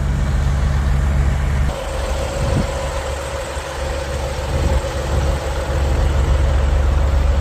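Truck engine running steadily with a low hum; about two seconds in the low end drops a little and a steady higher tone comes in.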